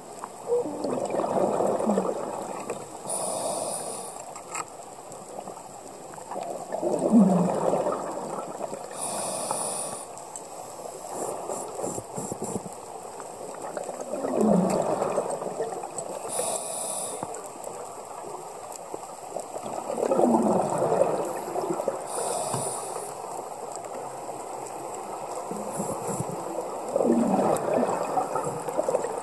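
Scuba regulator breathing underwater, slow and even: each exhale is a burst of bubbling and each inhale a short hiss, the cycle repeating about every six seconds.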